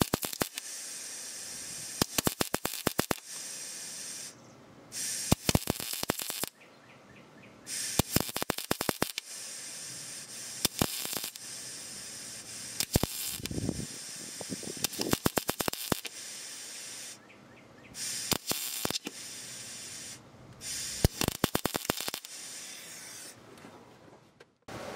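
Arc welding on the truck's engine-bay sheet metal: a steady crackling hiss with sharp pops, in several runs of a few seconds broken by short pauses between welds.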